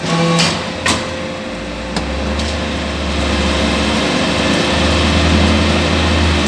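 Hydraulic briquetting press running: a steady drone from its motor and hydraulic pump, with a few sharp clicks early on. A deep hum comes in about a second and a half in and grows louder.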